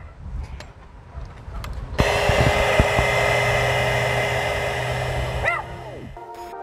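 Handheld electric heat gun switched on about two seconds in, its fan blowing hot air with a steady hum, softening old vinyl sticker adhesive. It stops about five and a half seconds in, and music comes in near the end.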